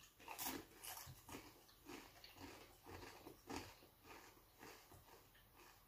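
Faint crunching and chewing of a Doritos tortilla chip, about two crunches a second, thinning out near the end.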